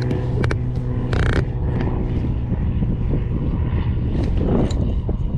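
An engine droning steadily with a low, even hum, with a few sharp knocks and a brief rushing noise about a second in.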